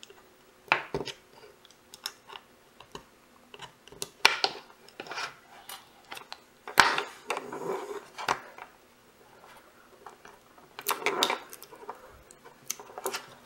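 Small precision screwdriver scraping, prying and clicking against the thin metal casing of a tiny Microdrive hard drive during disassembly. Scattered sharp clicks, with short scraping bursts about four, seven and eleven seconds in.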